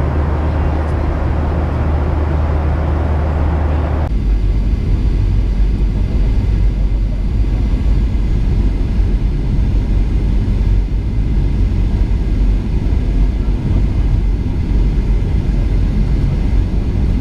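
Steady low rumble of a Boeing 737-800's cabin, engine and airflow noise heard from inside the plane. About four seconds in, a fuller, brighter noise cuts off abruptly and only the deep rumble is left.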